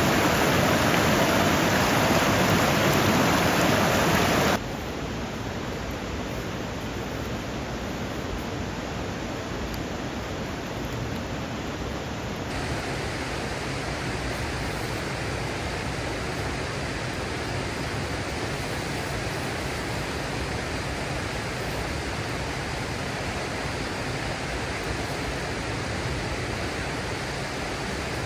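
Mountain stream rushing steadily over rocks. It is louder for the first few seconds, then drops abruptly to a steadier, quieter rush, with another slight change about halfway through.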